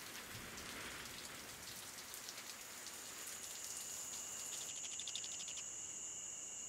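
Faint rain pattering, a soft hiss dotted with small drop ticks. Near the end a steady high-pitched whine comes in under it.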